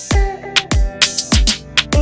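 Electronic background music with a steady beat: deep kick drums that drop in pitch, roughly every 0.6 seconds, with crisp percussion strokes between them and held synth chords.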